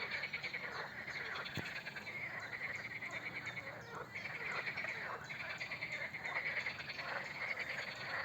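A chorus of frogs croaking continuously, many fast rattling calls overlapping. There is a single brief click about a second and a half in.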